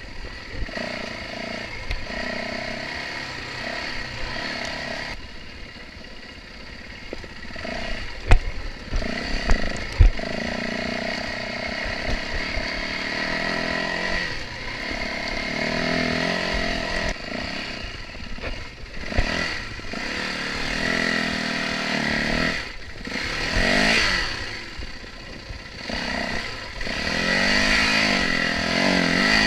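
Yamaha WR450F dirt bike's single-cylinder four-stroke engine running as the bike is ridden, the revs rising and falling again and again, with a few sharp knocks partway through.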